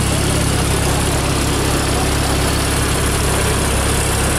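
Porsche 911 Turbo S twin-turbo flat-six idling steadily, heard up close at its quad exhaust tips.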